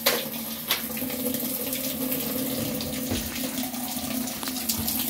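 Water running into a top-load washer's tub over a steady machine hum, with two sharp clicks in the first second as the cycle selector knob is turned.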